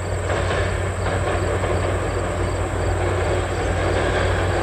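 A passenger train with a diesel locomotive crossing a long steel trestle: a steady rumble of engine and wheels with a deep hum. It swells a little in the first second and then holds.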